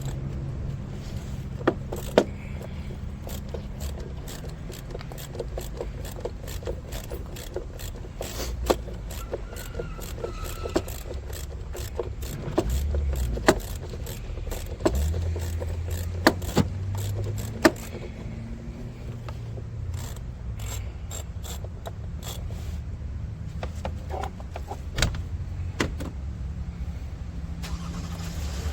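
Scattered clicks, clinks and knocks of hand tools and parts being handled in a car's engine bay, over a low steady rumble.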